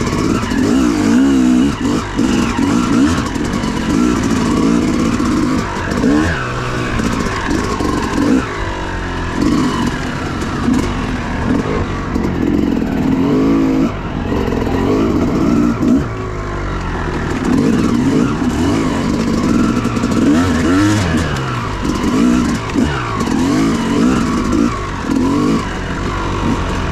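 Dirt bike engine ridden on trail, its revs rising and falling again and again as the throttle is opened and closed.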